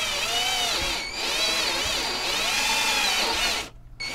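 Cordless drill with a step bit boring through a turntable's back panel. The motor whine rises and falls in pitch as the speed changes, dips briefly about a second in, and stops near the end.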